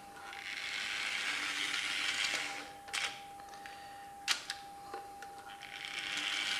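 Märklin H0 model locomotive running over M-track with a steady mechanical noise that stops about two and a half seconds in. Then come two sharp clicks, the louder one about four seconds in as the double slip switch's solenoid drive is thrown from the push-button panel. The locomotive starts running again near the end.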